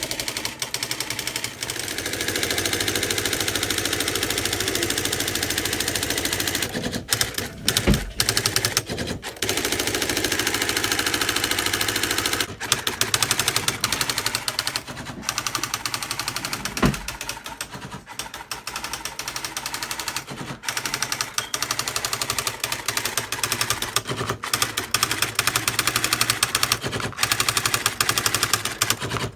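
Panasonic KX-R350 electronic typewriter printing by itself, a fast, continuous stream of striking clicks with short pauses between lines, as it runs the routine started by powering on with the Shift key held down.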